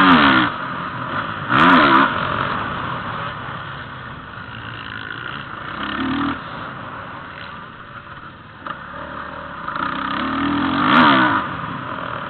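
Motocross dirt bike engine revving hard and easing off as it rides the track, its pitch sweeping up and down. Loud surges come near the start, around two seconds in and again about eleven seconds in, with a quieter stretch between.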